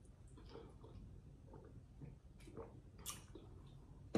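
Faint, scattered wet mouth sounds: sips from a drink through a straw, swallows and a few small lip smacks.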